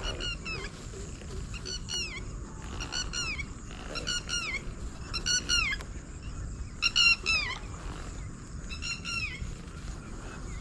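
A bird calling repeatedly: about seven short groups of two or three high, falling notes, spaced a second or two apart.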